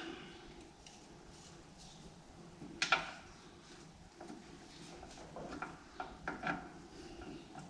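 Faint clinks and knocks of hand tools working at the sump of a Massey Ferguson 35X tractor engine. One sharper knock comes about three seconds in, followed by a run of lighter clicks and taps.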